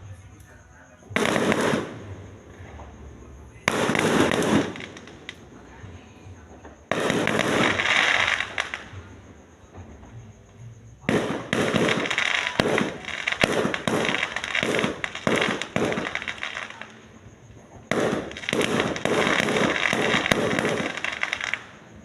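Fireworks going off in bursts: a couple of short bursts early, a longer one around seven seconds in, then long volleys of rapid cracking reports from about eleven seconds on.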